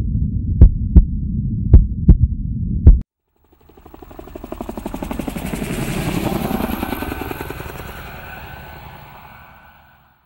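Heartbeat sound effect: paired low thumps, about one beat a second, over a low hum, cutting off sharply about three seconds in. After a brief gap, a fast fluttering whoosh swells up and slowly fades away near the end.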